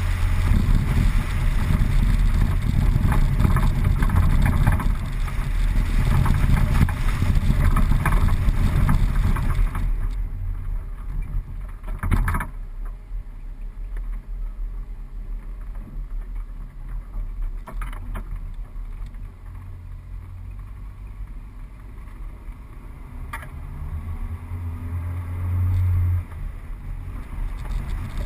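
Suzuki four-wheel drive's engine running under load as it drives along a soft sand track, with road and body noise. It is louder for the first ten seconds, then quieter, with a sharp knock about twelve seconds in and an engine note that rises and then drops off suddenly near the end.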